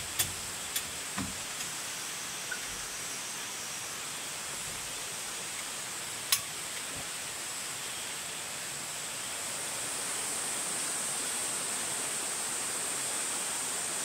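Steady rushing outdoor ambience, with a few sharp clicks and knocks in the first second or so and one louder click about six seconds in as a gas lantern is handled and hung on its tripod. The hiss grows a little louder about ten seconds in.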